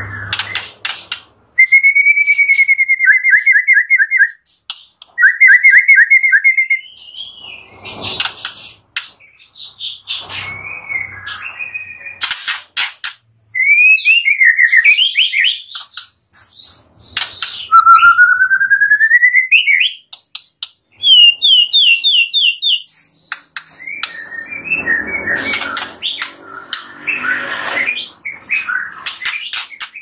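White-rumped shama (murai batu) singing a varied song of loud whistled phrases, runs of quick repeated notes and sharp clicking notes. Near the end comes a stretch of harsh, rasping chatter.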